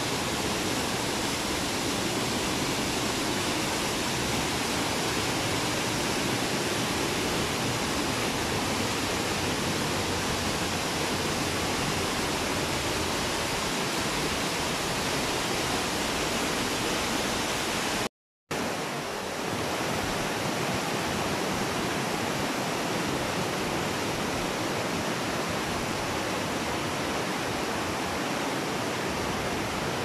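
Mountain stream rushing steadily over rocks and small cascades below a gorge walkway. The sound cuts out completely for a split second a little past halfway, then resumes unchanged.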